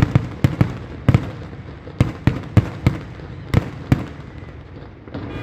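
Aerial fireworks shells bursting in a quick, irregular run of sharp bangs that thins out in the last second or so.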